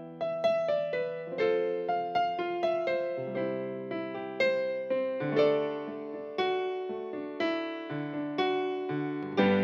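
Background music: an electric piano playing a slow melody over sustained bass notes, each struck note decaying away.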